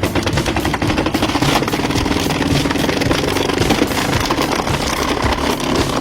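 Engine of a hydraulic log splitter running steadily.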